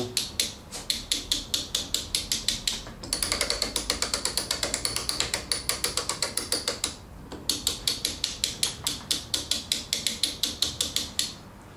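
Lewmar Ocean winch turned by its winch handle with the drum off, its pawls clicking over the gear ratchets in a rapid, even run of clicks as the freshly greased gears rotate. The clicking pauses briefly about seven seconds in, resumes, and stops shortly before the end.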